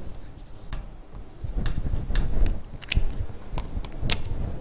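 Whiteboard markers being handled and written with on a whiteboard: about half a dozen sharp clicks and taps spread over a few seconds, the loudest near the end.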